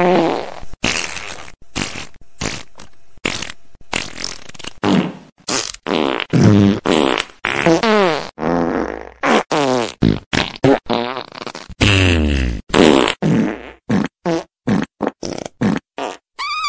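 A long run of fart sounds, one after another with hardly a gap, some short and some drawn out, many with a buzzing pitch. Each one starts and stops sharply.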